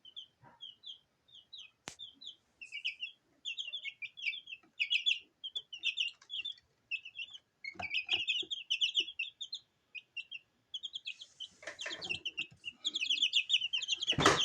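Baby chicks, one to two weeks old, peeping: a rapid, continuous stream of short, high, downward-sliding cheeps, with a few sharp knocks and some rustling in the second half.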